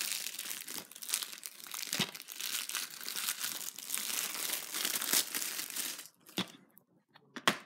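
Plastic shrink-wrap being torn and peeled off a DVD case, a dense crinkling that stops about six seconds in. A couple of sharp clicks follow near the end.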